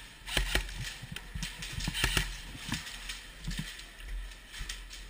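Irregular light clicks and knocks, a few a second: an airsoft player's footsteps and gear shifting as he moves through a plywood arena.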